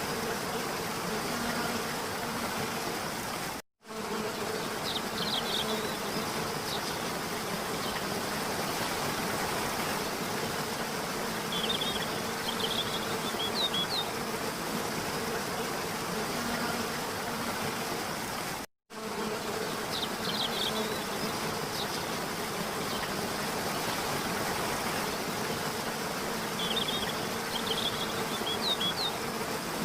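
Steady rush of a waterfall, with a few short high chirps now and then. The sound cuts out for an instant twice, where a looped recording restarts.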